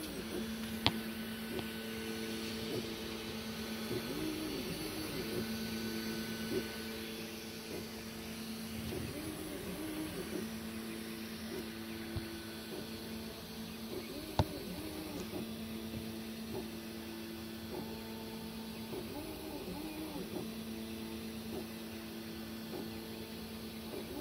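3D printer running a print: its stepper motors hum in steady tones that keep bending up and down in pitch as the printhead speeds up and slows through its moves. Two sharp clicks, one about a second in and one a little past halfway.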